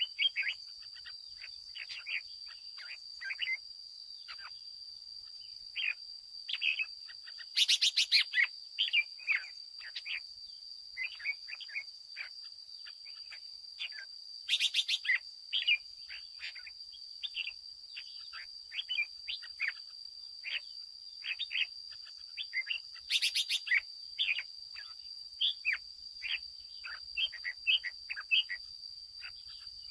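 Red-whiskered bulbul singing: short, quick chirpy notes and phrases throughout, over a steady high insect whine. A brief rapid rattle cuts in three times.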